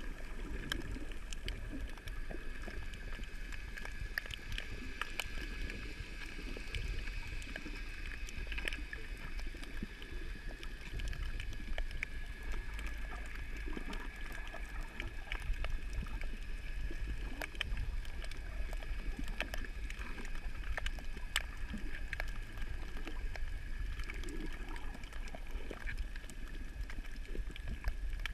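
Underwater ambience picked up by a camera submerged over a coral reef: a steady low rumble with a faint steady high hum, and many scattered sharp clicks throughout.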